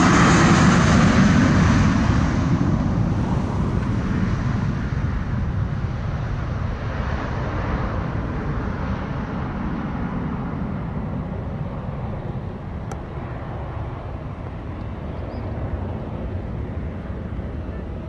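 Airbus A320 jetliner with IAE V2500 turbofans at takeoff power, rolling past and climbing away. The noise is loudest at first and fades steadily: the high hiss dies down within about two seconds, leaving a low rumble.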